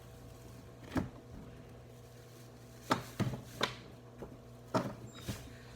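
Small objects being handled and knocked against a hard surface: about six short, sharp taps and clicks, spread irregularly, with two close together about three seconds in.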